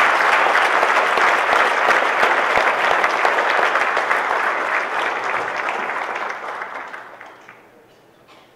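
Audience applauding steadily, then dying away about seven seconds in.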